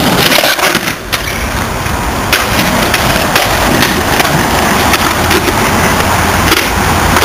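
Skateboard wheels rolling over rough concrete, a continuous gritty rumble, with several sharp clacks of the board along the way.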